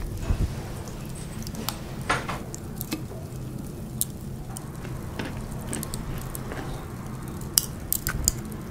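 Wooden chopsticks clicking and scraping against a porcelain bowl, a dozen or so light irregular clicks, over a steady low hum.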